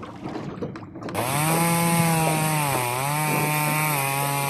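Chainsaw sound effect: a two-stroke saw engine running at high revs, with its pitch dipping and recovering as if under cutting load. It starts abruptly about a second in.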